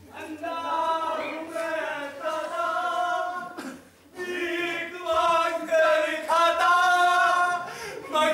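Voices singing unaccompanied in long held, chant-like notes, with a short break about four seconds in.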